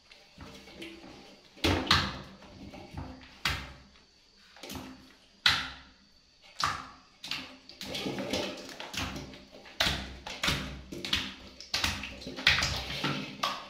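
Irregular sharp knocks and bumps, a dozen or so, ringing briefly in a small tiled room as a baby monkey clambers on a plastic wall tap and the rim of a steel basin. They come closer together in the second half.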